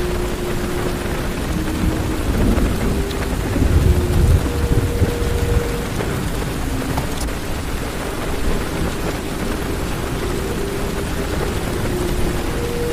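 Heavy rain falling on a car's roof and windows, heard from inside the car, with a low rumble of thunder that swells and fades about two to five seconds in.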